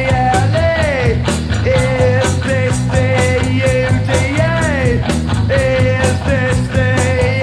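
Punk rock band recording: distorted electric guitar, bass and drums playing hard, with a held high note that bends downward in pitch twice.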